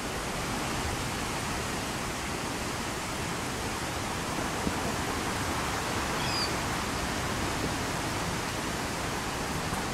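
Steady rushing wind noise on the microphone, rumbling at the low end, with a faint brief high chirp about six seconds in.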